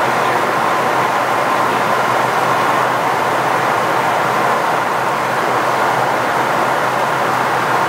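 Steady rushing noise inside the cockpit of a KC-135 Stratotanker in flight, the airflow and jet engines blended together, with a faint low hum underneath.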